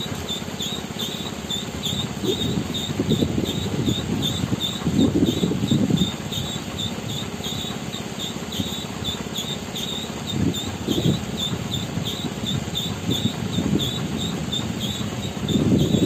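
MAN CLA 26.280 concrete mixer truck running, its engine and turning drum giving an uneven low rumble that swells and fades several times. Over it runs a steady high chirping, about three chirps a second.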